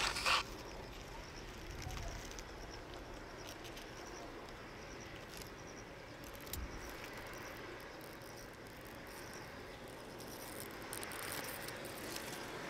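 Open-air rail yard ambience: insects chirping steadily under faint, scattered clicks and clanks from the rolling stock. A short, sharp clank right at the start is the loudest sound.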